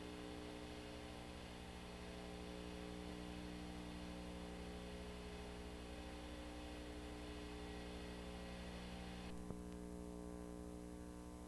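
Steady electrical mains hum with hiss and no other sound. A faint click comes about nine and a half seconds in, after which the high hiss thins out.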